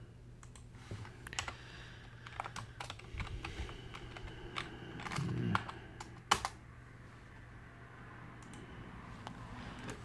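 Typing on a computer keyboard: irregular key clicks, with one sharper click a little after six seconds.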